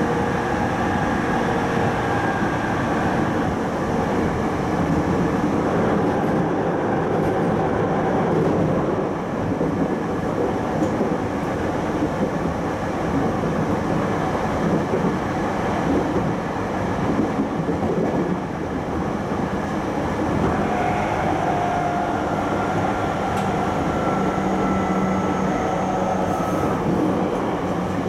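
Running noise heard inside an E231-1000 series electric train's motor car at speed: a steady rumble of wheels on rail and body noise. Faint steady tones, typical of the Hitachi IGBT VVVF inverter and MT73 induction traction motors, come and go, near the start and again over the last several seconds.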